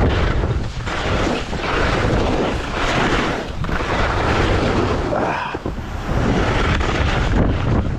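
Wind buffeting an action camera's microphone on a moving skier: a loud, deep rumble with hiss that swells and eases about once a second.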